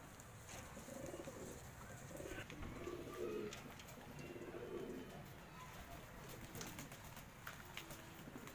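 Domestic fancy pigeons cooing, a run of low, pulsing coos through the first half or so and another short one near the end.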